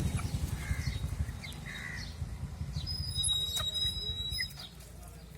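Chicks peeping in short high chirps, over a low rumble that drops away near the end.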